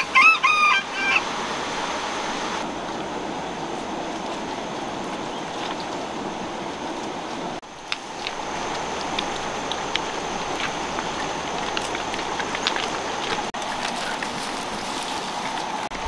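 A rooster crows once in the first second, over the steady rush of a river running over stones, with a few light clicks later on.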